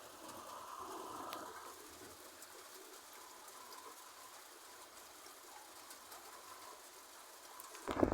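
A bird calling faintly, most audible in the first couple of seconds, over a low hiss. Sharp knocks start right at the end.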